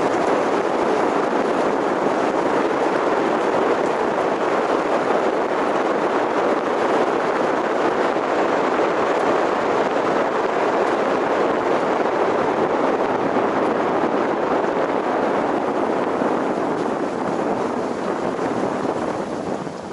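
Steady rush of road and wind noise from a moving car, picked up by a vehicle-mounted action camera; it eases a little near the end.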